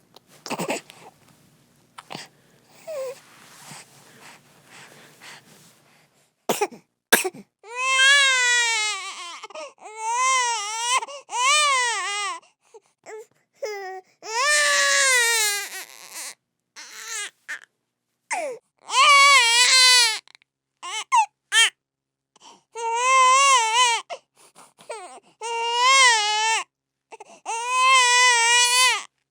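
A baby crying: soft fussing and breaths at first, then from about seven seconds in, loud wavering wails of a second or two each, repeated with short pauses for breath.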